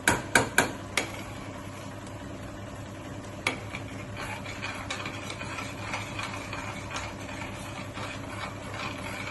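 A spoon stirring a thickening jaggery-and-ghee mixture in a pan on low heat. Four sharp knocks of the spoon against the pan come in the first second and another about three and a half seconds in, followed by steady stirring noise with faint ticks.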